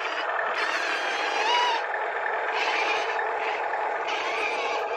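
Small electric motor and gears of a toy RC tracked dump truck whirring in spurts, with its tracks scraping through sand.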